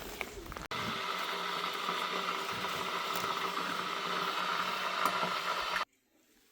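Engine-driven machinery running steadily with a mechanical rattle. It cuts off abruptly near the end.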